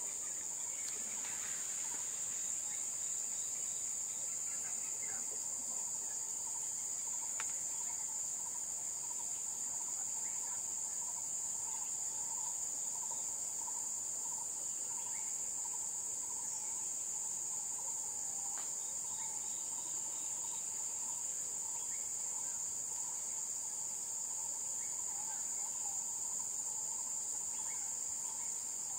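Steady, high-pitched chorus of forest insects, unbroken throughout, with a lower, rapidly pulsing trill beneath it and a few faint, short calls.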